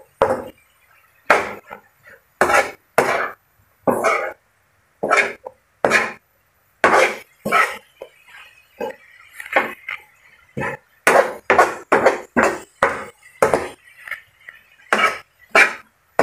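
Metal spatula scraping and clanking against a pan as a cabbage and carrot stir-fry is tossed, in irregular strokes about one or two a second, coming faster around eleven to thirteen seconds in.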